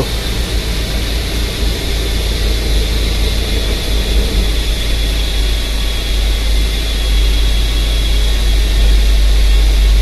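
GMC Acadia's V6 engine running at idle, a steady low rumble that gets a little louder about seven seconds in. The engine is being diagnosed for rough running and a misfire, with high positive fuel trims on both banks.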